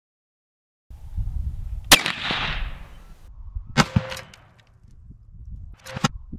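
Rifle rounds hitting a steel chestplate made of an AR500 plate under a 16-gauge sheet-metal shell. There are three sharp impacts about two seconds apart. The first is the loudest and trails off over about a second, and the later two carry a brief metallic ring.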